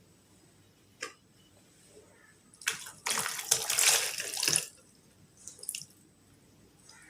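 Water running briefly, for about two seconds starting a little before the middle, with a short click about a second in and a few faint clicks after the water stops.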